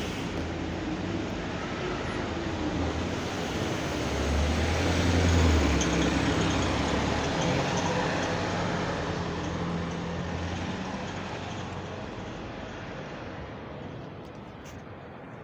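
Bus engine running with a loud, low drone that swells to its loudest about five seconds in, then fades steadily as the bus moves away. This is the noise the uploader calls awful.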